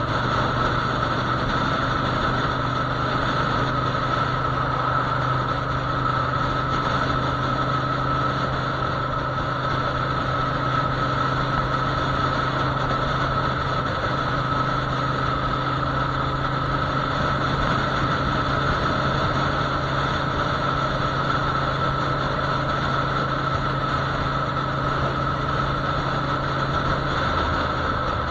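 Motorcycle engine running steadily at cruising speed, with wind rush over it; the engine note drops in pitch about a second before the end.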